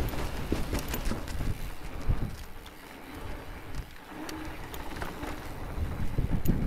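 Mountain bike rolling fast down a dirt forest trail: tyre noise on dirt and gravel with scattered clicks and rattles from the bike, over a low rumble of wind on the microphone. It eases off for a moment in the middle and picks up again near the end.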